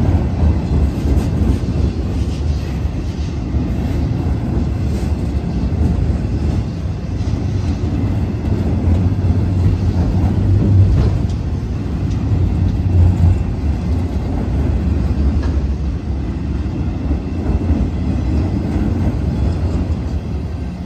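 CSX autorack freight train rolling past at close range: a steady low rumble of steel wheels on the rails, with faint clicks as the wheels cross rail joints.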